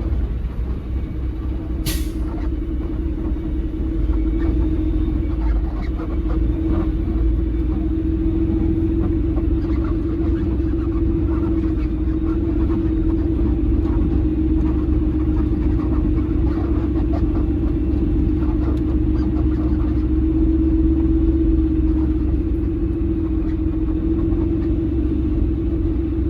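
Semi-truck's diesel engine running at low speed as the truck crawls slowly, under a steady buzzing tone. A single sharp click about two seconds in.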